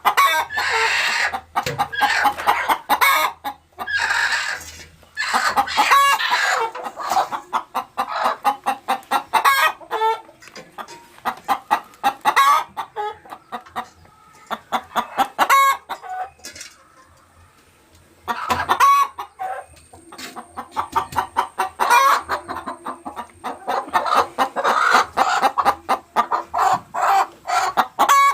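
Laying hens cackling loudly in bouts of rapid repeated clucks, with a brief lull past the middle: the cackle hens make around laying an egg.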